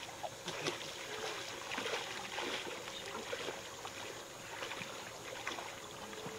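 Lake water gently sloshing and lapping, with small irregular splashes.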